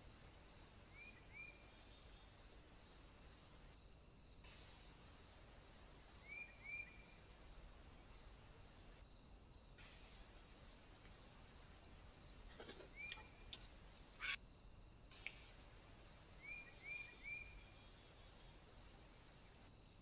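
Faint outdoor ambience dominated by a steady, high-pitched insect chorus, dipping briefly every few seconds. Short chirps come two or three at a time several times, and a few sharp clicks sound a little past halfway, the loudest about two-thirds through.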